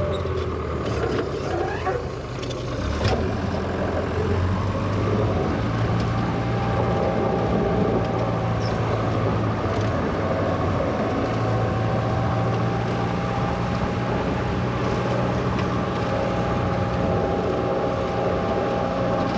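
1963 Volvo LM225 wheel loader's engine running steadily, with a few knocks in the first three seconds and a steady whine above the engine from about six seconds on.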